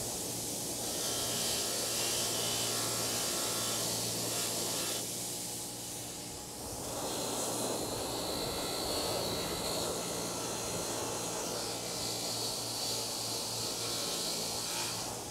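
Bench grinder fitted with a wire wheel running steadily, a rusty Estwing hammer held against the spinning wire bristles to scrub the rust off, giving a steady hum under a rough scrubbing hiss. The scrubbing eases briefly about six seconds in, then returns with a thin high whine.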